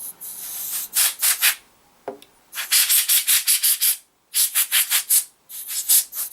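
Can of compressed air spraying into a laptop's opened chassis to blow out dust: one longer hiss at the start, then groups of rapid short puffs with brief pauses between them.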